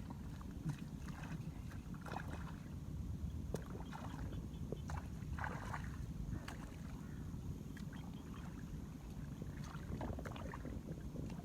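Shallow water splashing and sloshing in short, irregular bursts over a steady low rumble.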